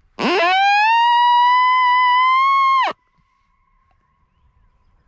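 A coyote howl sounded as a predator call: one long howl that sweeps up steeply, holds and climbs slightly, then breaks off sharply after nearly three seconds. A faint steady tone lingers after it.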